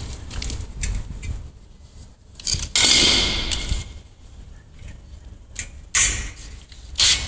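Cordless drill run in short bursts about three and six seconds in, the first fading as it spins down, then held running steadily just before the end while drilling at a bracket on a steel channel.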